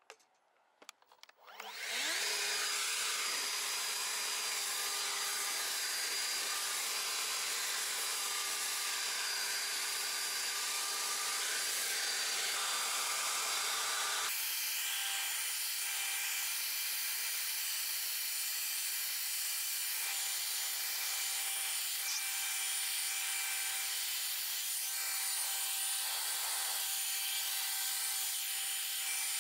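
A few clicks, then a battery-powered EGO leaf blower starts about two seconds in and runs steadily with a fan whine, blowing water off a freshly washed car to dry it. Its tone changes about halfway through.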